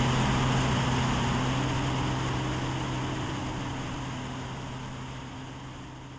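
Cessna jump plane's piston engine and propeller droning with a steady low hum over rushing wind, fading steadily over several seconds.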